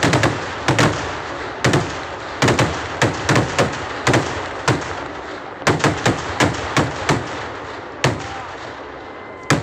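Daytime fireworks: aerial shells bursting overhead with sharp bangs in quick, irregular succession, often several within a second, thinning to one or two near the end.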